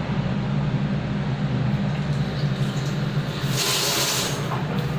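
Hand-held toilet bidet sprayer jetting water with a steady hiss over a low hum, with a louder burst of hissing spray about three and a half seconds in that lasts under a second.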